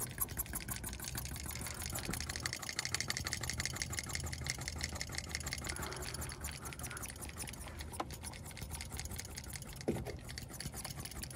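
A small machine running with a rapid, even clatter of about ten ticks a second over a low hum, with a couple of single knocks near the end.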